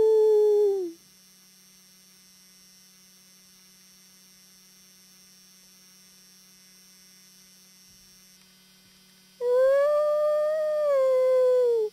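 Two long, clear howls. The first falls in pitch and fades out just under a second in. The second starts about nine and a half seconds in, rises, holds and sinks, and cuts off abruptly at the end. A faint steady electrical hum fills the gap between them.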